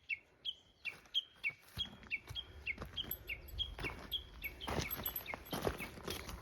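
A bird calling an even series of short chirps, about three a second, each dropping in pitch. From about two seconds in, footsteps on the mountain trail thud and crunch beneath it.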